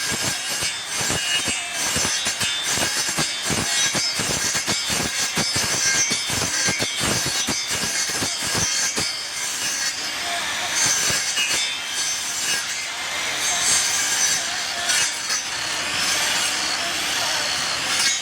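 Wood being worked with a hand tool: rough, rapid scraping strokes across the wood, then a steadier rasping noise from about ten seconds in.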